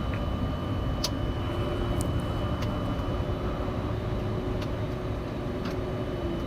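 Steady Boeing 747-400 freighter flight-deck noise: a low hum and hiss with faint steady whines running under it, and a few sharp clicks scattered through it.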